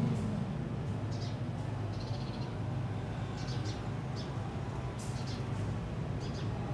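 Short, high-pitched animal calls, repeated every second or so, over a steady low rumble.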